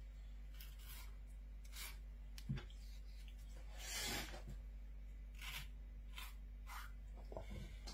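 Knife slicing through a dogfish's rough, sandpaper-like skin on a wooden chopping board: a series of short, faint scraping cuts, one longer about four seconds in, with a light knock about two and a half seconds in.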